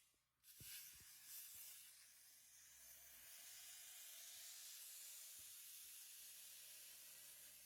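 Faint CNC plasma cutting torch hissing steadily as it cuts, with two low thumps just under a second in as it starts.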